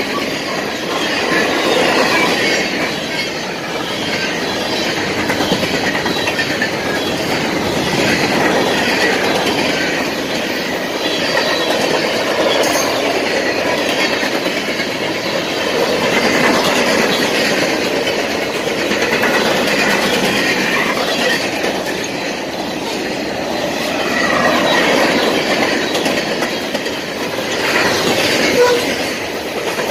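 Cars of a manifest freight train rolling past close by: a steady rumble of steel wheels on rail, rising and falling every few seconds, with clickety-clack over the rail joints and faint wheel squeals now and then.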